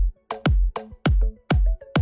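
Background electronic dance music with a steady kick-drum beat, a little under two beats a second, and short synth notes between the beats.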